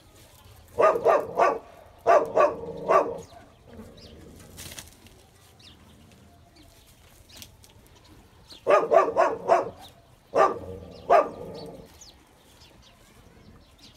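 An animal calling in four short runs of quick, pitched calls, two runs about a second in and two more in the second half.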